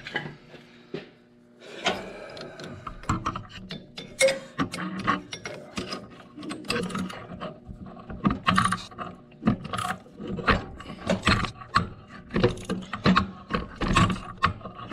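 Socket ratchet clicking in short, uneven runs, with metal clinks from the wrench, as a hard-to-reach bolt on the tractor's drive coupling is tightened. The clicking starts about two seconds in.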